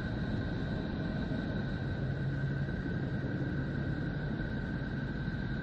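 Space recording converted to audio and presented as the sound of Neptune: a steady, dense noise with two high steady tones over it and a low hum that strengthens about two seconds in.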